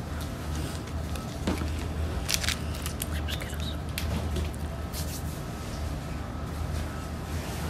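Handling noise from someone moving about a small room: a few sharp clicks and rustles, most of them between about one and a half and four seconds in, over a steady low hum.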